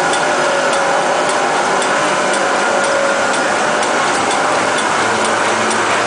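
Napkin paper folding machine running: a steady mechanical whir with a faint whine and a light, regular ticking as the tissue web feeds from the jumbo roll.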